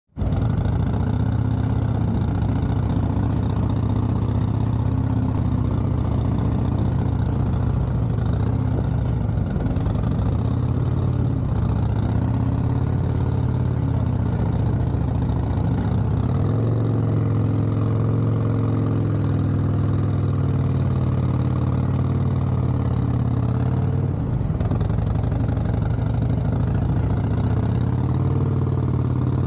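Harley-Davidson touring motorcycle's V-twin engine running steadily at low revs during slow-speed riding, its pitch shifting a little now and then as the throttle is worked.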